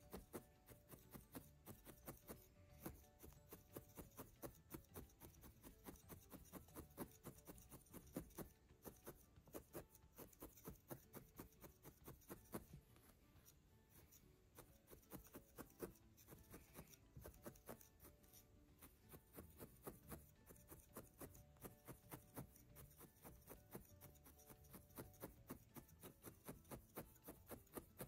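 Felting needle stabbing again and again through loose wool into a felt pad: soft, quick pokes about three to four a second, with a couple of short pauses midway.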